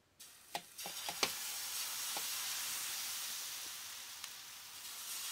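Thin semolina and rice-flour dosa batter sizzling as it is poured in a spiral onto a hot nonstick tawa. The steady hiss starts a fraction of a second in, with a few light clicks near the start. The instant sizzle shows the tawa is hot enough for the batter to set into a lacy, holed dosa.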